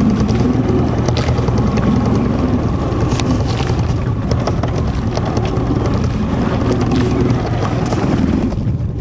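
Small fishing boat's motor running steadily, with scattered knocks and splashes as nets are worked over the side.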